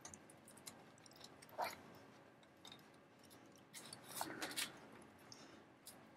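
Faint clicks and rustles of hands handling model-kit parts and wiring. There is one sharp click about a second and a half in, and a cluster of small clicks around four seconds in.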